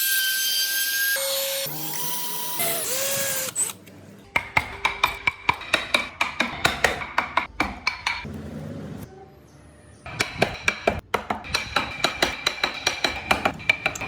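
Woodworking tools on wood: a power tool runs with a steady high-pitched noise for the first few seconds and stops, then sharp regular tapping strikes come at about four to five a second in two runs, with a quieter gap between them.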